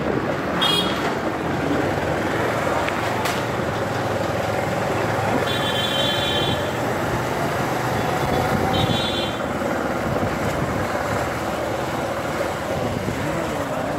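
Street traffic noise running steadily, with a few short high-pitched beeps, about a second in, around the middle and a little later.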